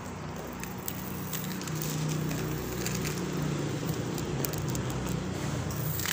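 Raw rice grains trickling from a hand and pattering onto a plastic plate of rice: a light crackle of many small ticks, fuller from about two seconds in, over a steady low hum.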